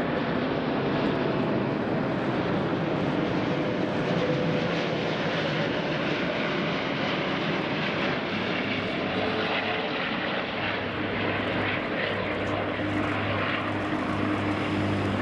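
Airbus A380-841's four Rolls-Royce Trent 970 turbofans on landing approach: a loud, steady jet engine rumble and hiss, with a low steady hum joining about twelve seconds in.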